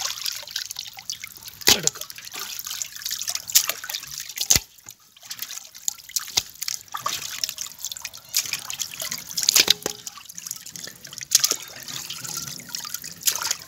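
Water splashing and dripping as whole tilapia are rubbed and rinsed by hand in a bowl of water, with irregular sharp splashes throughout.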